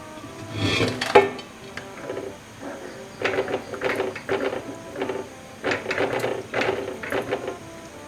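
A pot lid is put on a pan with a clatter about a second in, followed by a run of light metal clinks and knocks from the cookware, over soft background music.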